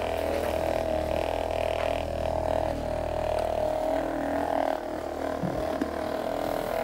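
Handheld percussion massage gun running, its motor giving a steady, even hum as its head is worked over a person's hand and arm.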